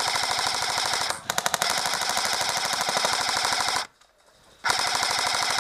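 Airsoft rifle firing full-auto in long, rapid rattling bursts: one burst runs about a second, stutters briefly, then goes on for about two and a half seconds more, and after a short pause another burst starts near the end.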